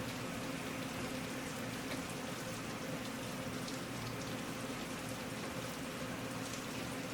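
Steady rain falling on a surface, an even hiss with scattered faint drop ticks, over a faint low steady hum.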